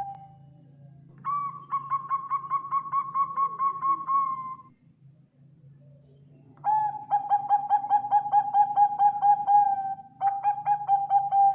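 Bangkok-bred zebra dove (perkutut) singing: three phrases of quick staccato cooing notes, about four a second, with short pauses between them. The first phrase is a little higher in pitch than the next two.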